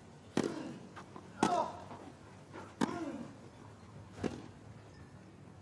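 Tennis ball struck by racquets in a rally: four sharp hits about a second and a half apart. The second and third hits each come with a short grunt from the player.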